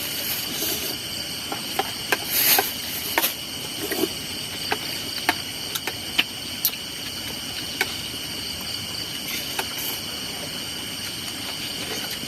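Steady, high-pitched chorus of night insects in a rice field, with scattered sharp clicks throughout.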